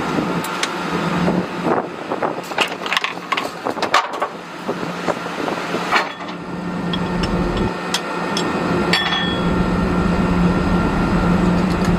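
Steady low machinery hum with scattered sharp metallic clicks and knocks during the first half. From about six seconds in, a heavier steady low rumble takes over.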